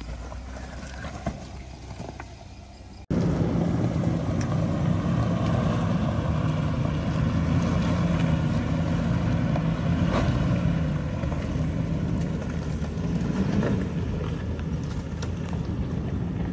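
A Jeep Wrangler's engine running low and quiet as it crawls over rocks, then about three seconds in an abrupt cut to a louder Toyota Land Cruiser's V8 pulling steadily over a rocky trail, a constant engine drone over the noise of the tyres and wind.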